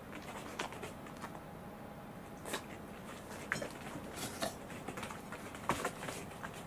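Scattered light clicks and taps from a plate of chiffon cake being lifted and a corgi biting into the cake, the sharpest near the end.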